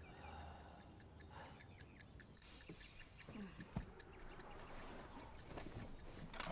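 A clock ticking steadily and quickly, several ticks a second, with a few soft swishes of movement and one sharp knock about halfway through.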